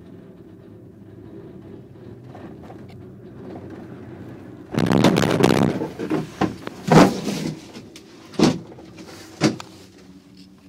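POMA gondola cabin riding the haul rope with a steady low hum, then, about five seconds in, a loud rattling clatter lasting about a second as the cabin's grip passes over a support tower's roller sheaves, followed by several sharp clunks a second or so apart as the cabin rocks on its hanger.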